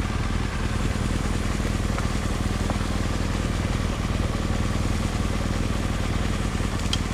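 Motorcycle engine running steadily while riding at an even speed, with a steady rush of wind noise over it.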